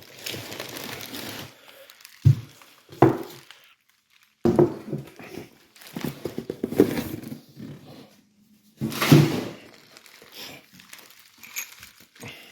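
Plastic wrap and packing material being handled and pulled from a cardboard box, crinkling and rustling in irregular bouts, with a couple of sharp knocks about two and three seconds in.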